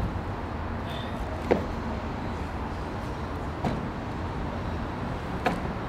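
Steady low outdoor rumble, with three short faint sounds: one about a second and a half in, one near the middle and one near the end.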